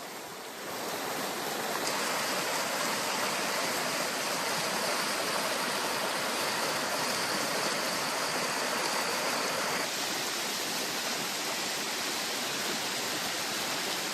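Steady rushing water of a rainy-season waterfall, getting louder about a second in and dropping a little at an abrupt change near ten seconds.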